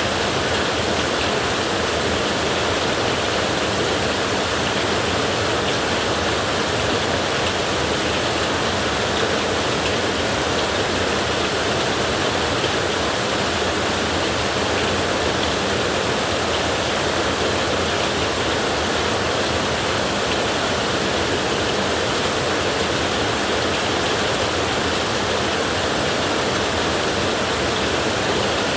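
Heavy rain falling on a tin roof: a dense, steady hiss of drops that holds an even level throughout, with no thunder standing out.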